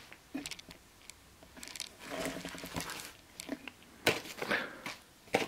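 Plastic component bags crinkling and cardboard game pieces rustling and clicking as a hand picks through a board game box, with a sharper knock a little after four seconds in.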